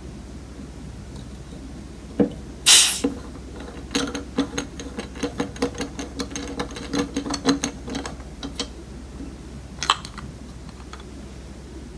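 Whipping siphon's CO2 cartridge holder being unscrewed: a sharp hiss of leftover gas escaping about three seconds in, then a quick run of metallic clicks as the holder turns off the threads, and a second short puff of gas near the end.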